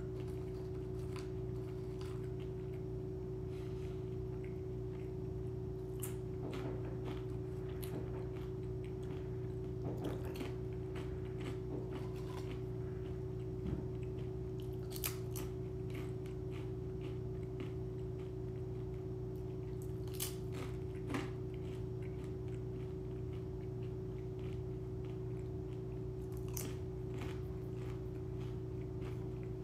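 A person chewing and crunching chips and a sandwich, with scattered crisp crunches over a steady background hum.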